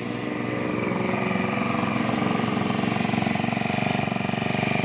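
Yamakoyo BG435 four-stroke brush cutter engine running steadily, a little louder from about a second in.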